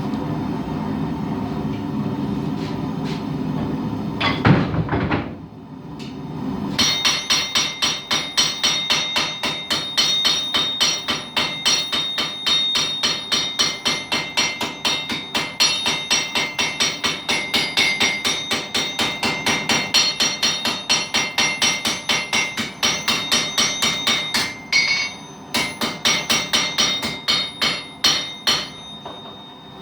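Small forging hammer striking hot steel, a steady run of ringing blows at about three a second with a short pause near the end. Before the hammering starts there are a few seconds of steady rushing noise and one heavy knock.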